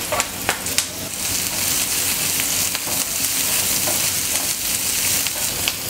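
Chopped onions and green chillies sizzling in oil in a nonstick frying pan, with a steady hiss. They are stirred with a spatula, giving a few light clicks about a second in and again near the end.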